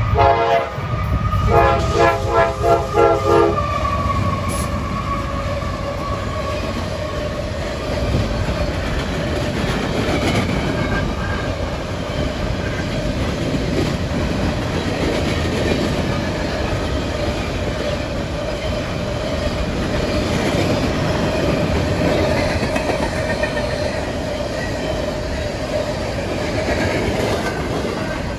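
CSX coal train passing at speed: the locomotive's horn sounds as a quick run of short blasts for the first few seconds. Then comes the steady rumble and clickety-clack of the coal cars rolling over the rails.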